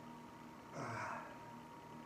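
A man's short vocal exhale or grunt, falling in pitch, about a second in, over a faint steady hum.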